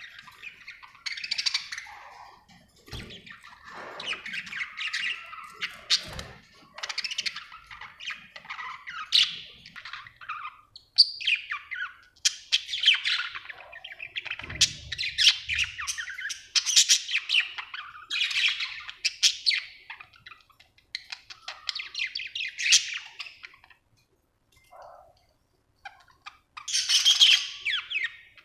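Budgerigar chirping in quick, rapid runs of chirps, with a pause of about three seconds near the end before a final burst.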